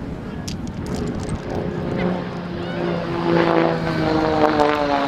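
Propeller-driven aerobatic display plane flying past, its engine note growing louder from about a second in and its pitch dropping near the end as it goes by.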